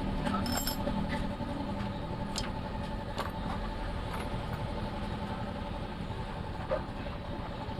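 Steady hum of a running engine, with a few light clicks and clinks of small metal motorcycle engine parts being handled.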